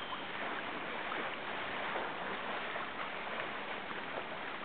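Steady rush and burble of river current flowing around wading anglers.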